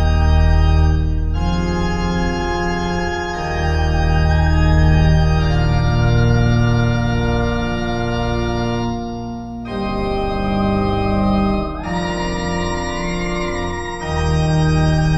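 Synth-pop/ambient electronic music played on synthesizer keyboards: sustained chords that change every two seconds or so, with a wavering higher melody line coming in about twelve seconds in.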